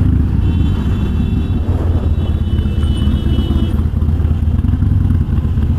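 Harley-Davidson Sportster's air-cooled V-twin running steadily, its exhaust coming through Vance & Hines Twin Slash 3-inch slip-on mufflers fitted with quiet baffles, which take the raspiness out of the note and leave a low, even rumble.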